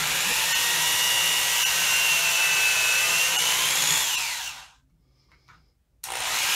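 Electric drill boring pilot holes for recoil-pad screws into a hard beech shotgun stock, running steadily. It winds down in pitch and stops about four and a half seconds in, a small click follows, and it starts again near the end.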